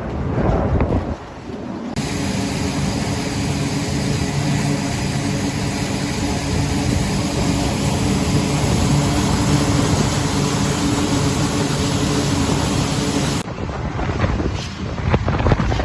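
Military jet aircraft engine noise. A low rumble gives way, about two seconds in, to a steady hum with several constant tones, which cuts off abruptly near the end into gusty wind buffeting on the microphone.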